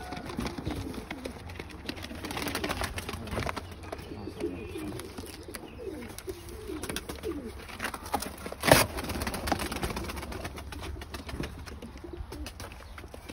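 Domestic pigeons cooing, many low rolling coos overlapping throughout, with one sharp knock about nine seconds in.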